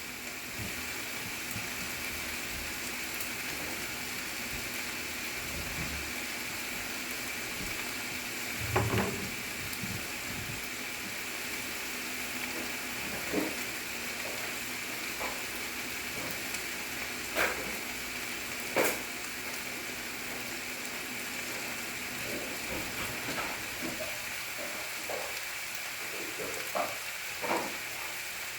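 Seasoned taco meat sizzling in a frying pan, a steady hiss, with a few short knocks of a utensil against the pan as it is stirred now and then.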